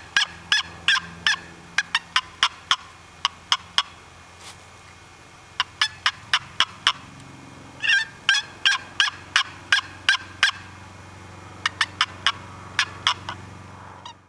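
Wooden turkey box call being stroked to make yelps: several runs of sharp, evenly spaced notes, about three a second, with short pauses between the runs.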